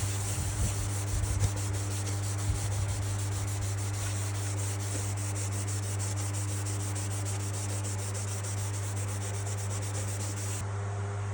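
Sandpaper or a rag rubbing across a catalpa board, making a steady scratchy hiss of quick, repeated strokes over a constant low hum. The bright top of the hiss cuts off suddenly near the end.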